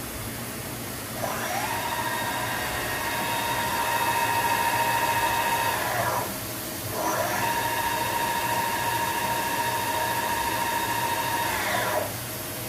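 Chevalier QP-2855 CNC vertical machining center running under power: a steady machine whine that rises in pitch about a second in, holds, then winds down, and after a short pause rises, holds and winds down again near the end.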